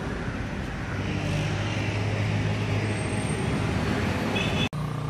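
A motor vehicle engine running steadily with road traffic noise, the sound dropping out for an instant near the end before carrying on.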